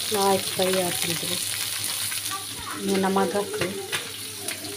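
Oil sizzling steadily as masala-coated fish fries, with a few light clicks of utensils. A voice speaks briefly twice in the background, near the start and about three seconds in.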